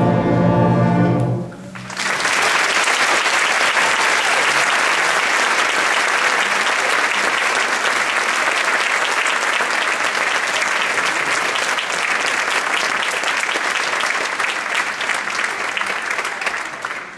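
A school concert band's final chord, held and cut off about a second and a half in, followed by audience applause that dies away near the end.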